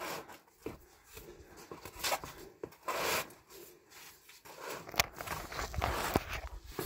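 Irregular scrapes and rustles of a climber's clothing and shoes rubbing against sandstone while squirming through a tight horizontal offwidth slot, with a few sharp clicks in the second half.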